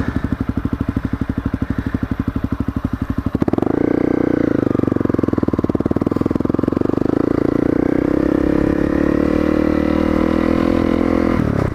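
Honda CRF250L's single-cylinder four-stroke engine ticking over with an even, slow pulse, then opened up about three and a half seconds in as the bike pulls away. It rises briefly in pitch and settles into steady running.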